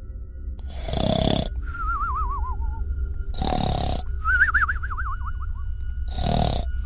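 Cartoon-style snoring sound effect: three snores about two and a half seconds apart, each followed by a wavering, falling whistle, the meme 'mimimi' snore, over a steady low hum.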